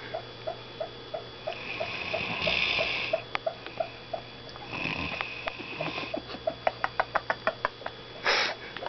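Snoring in sleep: long, breathy, hissing breaths a few seconds apart, with a soft, regular ticking underneath and a run of quicker small clicks shortly before the last breath.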